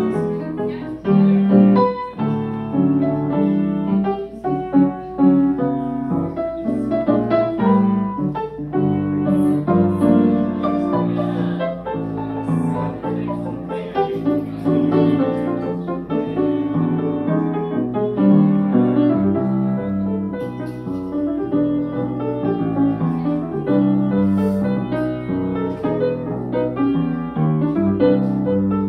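Solo grand piano, played continuously: a melody over chords and a moving bass line.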